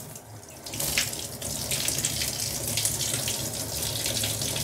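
Water running from a bathtub tap and splashing through the fine mesh of an air-conditioner filter being rinsed, growing louder about a second in.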